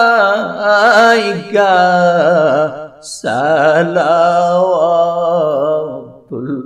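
Devotional milad chant of the salutation 'Salam alaika' to the Prophet, the words drawn out in long wavering notes. The singing breaks off briefly for a breath about three seconds in and again just before the end.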